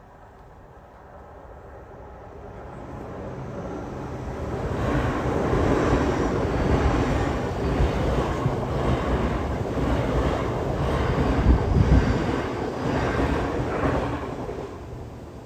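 Train passing at speed: it grows from a distant rumble to a loud rush, with a run of rhythmic knocks as the wheels pass, then fades away near the end.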